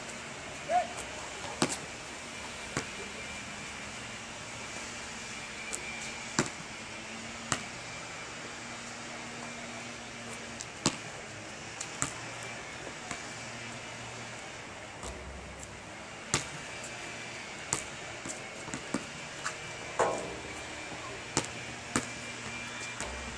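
A basketball bouncing on an outdoor asphalt court during a solo shootaround: single sharp bounces and knocks at irregular intervals, a dozen or so, over a steady background hiss.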